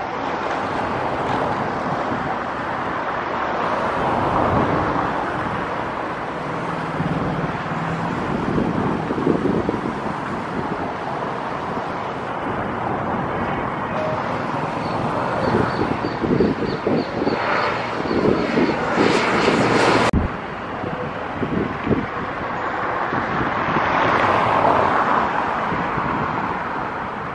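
Twin-engine turboprop at takeoff power, engines and propellers running loudly as it climbs out, with a high whine in the middle. It cuts off suddenly and gives way to the engines of a jet airliner on the runway, growing louder and then easing.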